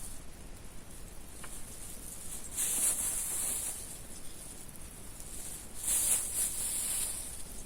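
Insects buzzing outdoors, a high steady hiss that swells louder twice.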